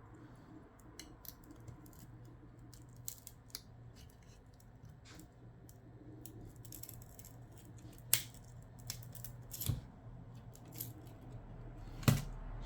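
Faint, scattered clicks and scrapes of a pry tool working a glued LCD screen loose from a Samsung Galaxy Tab A (T290) tablet frame, with a sharper click about eight seconds in and another near the end.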